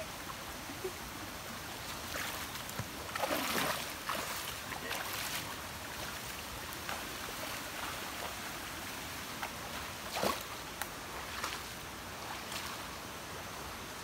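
Bare feet splashing and wading through a shallow, muddy stream over steady running water, with the splashing heaviest a few seconds in and a few separate splashy steps later.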